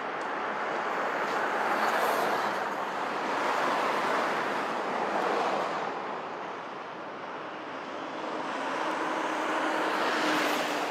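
Passing road traffic: a steady rushing noise that swells and fades about three times as vehicles go by.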